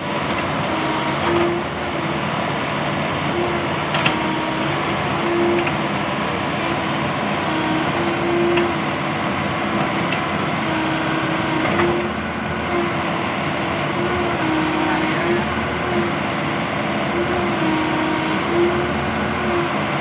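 Kobelco SK75 excavator running, its diesel engine and hydraulics working as the boom and bucket move. A steady machine hum rises and falls slightly in pitch every second or so, with a few faint knocks.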